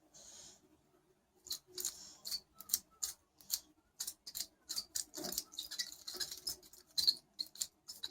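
Stainless-steel bracelet of a Casio G-Shock MTG-G1000D creaking: a quick, irregular series of short, high squeaks and clicks from the links, starting about a second and a half in. It is an unwanted creak in the bracelet.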